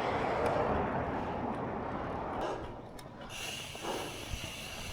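Noise of wind and the road while riding a bicycle, strongest in the first two seconds and then easing off; a steady high hiss joins about three seconds in.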